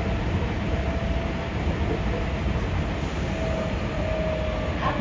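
Running sound inside a Hankyu 5300 series resistance-controlled electric train: a steady rumble of wheels and traction motors while the train is under way, with a faint held whine.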